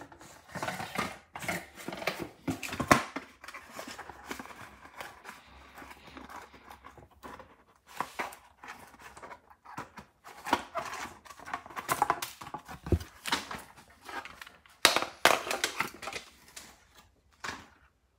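Cardboard packaging and a plastic toy phone being handled: an irregular run of clicks, knocks and rustling.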